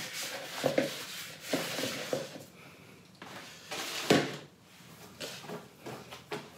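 Kitchen handling sounds: a plastic mixing bowl being moved across a wooden table, with light taps and scrapes and one louder knock about four seconds in as it is set down.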